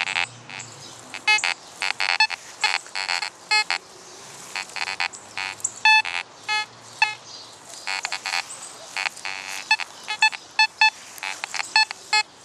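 Fisher F44 metal detector giving target tones: many short, sharp beeps at several different pitches in quick, irregular runs as the search coil is swept over metal in the ground.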